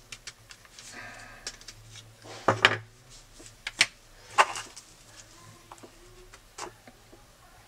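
Handling noise on a workbench: light clicks and three sharp knocks in the middle as small plastic camera-mount parts are picked up and set down, then a metal spoon working thick epoxy paste on a plastic lid.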